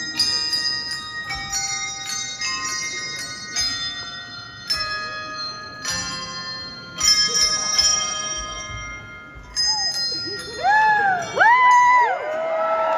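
Tuned bells struck one note after another in a ringing melody, each note ringing on after it is hit. Near the end, rising-and-falling whoops from the crowd come in over the bells.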